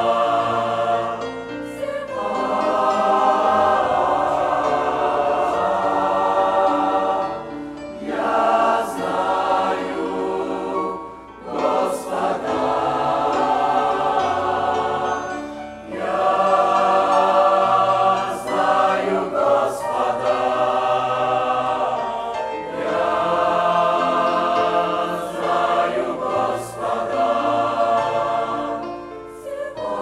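Mixed youth choir of men's and women's voices singing a Russian-language hymn in sustained phrases, with short breaks between phrases.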